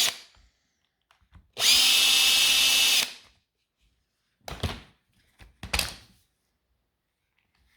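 Electric screwdriver or drill-driver running steadily for about a second and a half, backing out a screw to open the housing of a brushed Milwaukee M18 impact driver, then two short knocks about a second apart.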